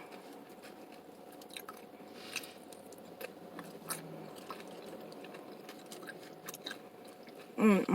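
A person chewing and crunching nachos (tortilla chips with cheese) close to the microphone, with scattered small crisp clicks. A voice starts again right at the end.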